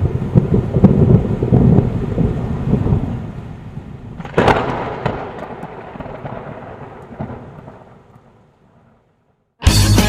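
Thunder: a sudden heavy rumble that slowly dies away, with a sharp crack about four seconds in, fading to silence just before the end.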